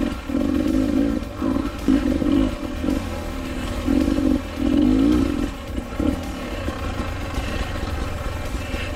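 Dirt bike engine revving in short bursts, about five in the first five and a half seconds, then running lower and steadier, as the bike starts and stops through a rocky section.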